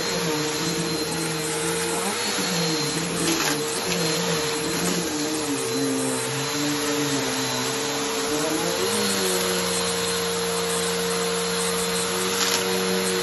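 Vacuum cleaner running on a shag rug, its motor hum wavering in pitch as it is worked over the pile, then holding steadier for the last few seconds.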